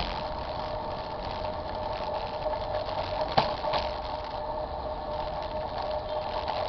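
Ride noise picked up by a camera mounted on a moving bicycle: a steady mechanical hum over low road rumble, with two sharp knocks, one right at the start and one about three and a half seconds in.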